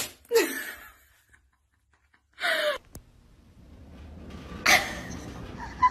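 Short, sharp gasp-like vocal outbursts with a falling pitch: one at the start, another about two and a half seconds in, and a third near the end.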